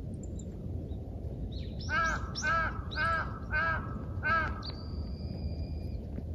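A crow cawing five times in a quick series over a low steady rumble, followed by a brief thin high whistle.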